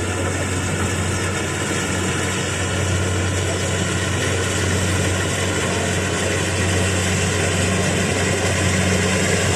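Kubota DC 70 rice combine harvester running steadily, its diesel engine giving a deep even drone with machinery noise above it.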